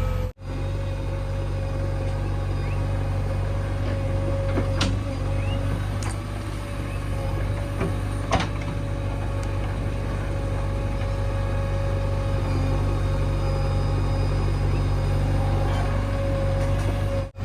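Diesel engine of a JCB 3DX backhoe loader running steadily under load, with a steady whine above it and a few sharp knocks of metal, the loudest about eight seconds in.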